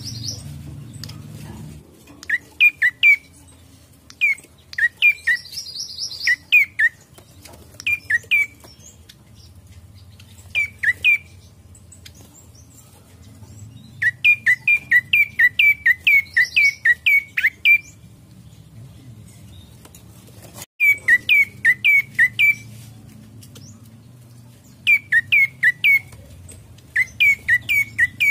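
Prenjak coki singing: loud, sharp chirps that sweep down in pitch, given in quick runs of three or four notes with short pauses between, and one longer run of about ten notes in the middle.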